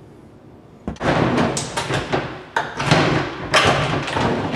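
Rotted wooden cabinet floor board scraping and knocking against the sink base cabinet as it is worked through the door opening. It starts about a second in: a run of rough scrapes with sharp knocks.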